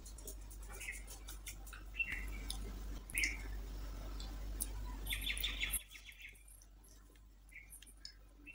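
Close-up eating sounds: soft clicks and chewing as rice and potato are mixed by hand and eaten, with short chirps of small birds in the background.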